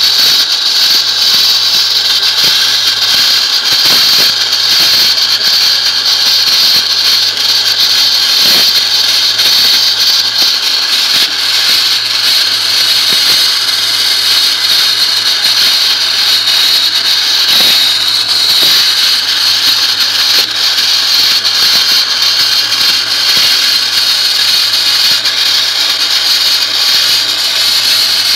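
Wet-blasting nozzle spraying a water-and-sand mix at about 90 psi against a Jeep body panel to strip the paint, a loud, steady hiss. A steady low hum runs underneath.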